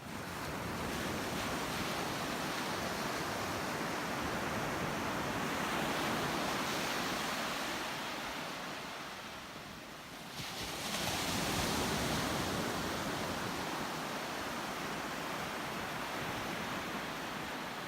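Ocean surf breaking and washing onto the shore, a continuous rush that eases off about ten seconds in before the next wave surges in.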